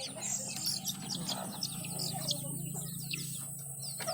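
Chicks peeping in a rapid run of short, high, falling chirps, over a steady low hum.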